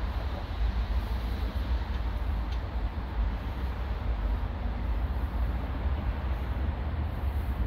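Steady outdoor background noise: a continuous low rumble with a broad hiss above it.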